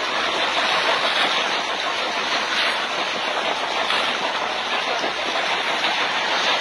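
Small boat under way: its engine running steadily under the rush of water and wind. The noise comes up sharply just as it starts.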